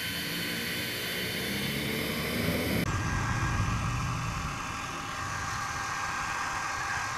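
Handheld hair dryer (National Turbo Dry) running steadily, a motor whine over rushing air. About three seconds in the sound changes abruptly: the high hiss drops away and a low rumble takes over.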